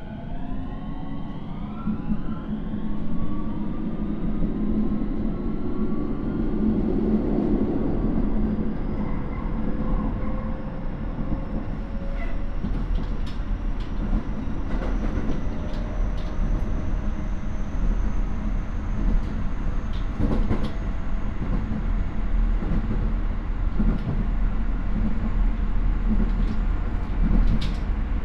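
Keio 9000 series electric train's Hitachi IGBT VVVF inverter and traction motors whining as the train accelerates: several tones rise quickly in pitch over the first few seconds, then a high tone keeps climbing slowly over steady rolling noise. Wheels click over rail joints now and then.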